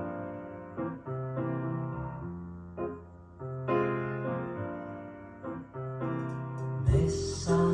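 Piano introduction of a recorded song played back on a recapped, fully tuned Nakamichi cassette deck: slow struck chords over low bass notes. Near the end the full band comes in, with a cymbal crash.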